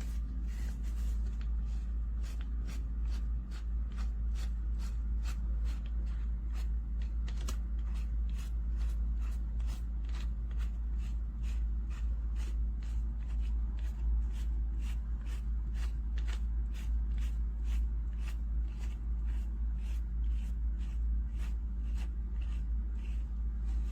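Rapid, evenly spaced sharp clicks, about two to three a second, over a steady low hum.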